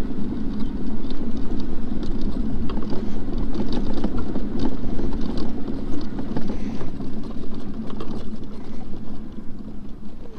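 Off-road mobility scooter riding over a bumpy field track: a steady low rumble from the drive and tyres, with frequent small knocks and rattles as it goes over the bumps.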